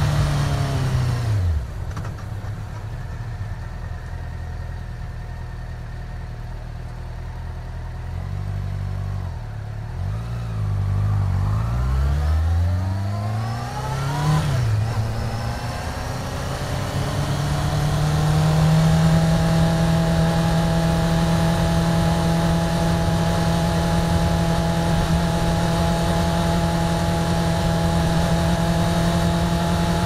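1999 Yamaha YZF-R6 600 cc inline-four engine heard onboard in a tunnel. Its note falls away in the first couple of seconds and stays quieter for several seconds. It then revs up, rising in pitch over about four seconds, and from about 18 seconds on it settles into steady cruising at a constant pitch.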